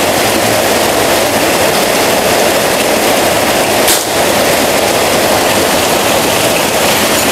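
Steady hiss of a heavy rain downpour. About four seconds in, a single sharp crack from an FX Crown-style PCP air rifle firing.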